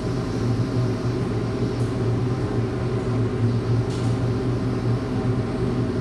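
Steady low mechanical hum of running kitchen equipment, with faint light clicks about two and four seconds in.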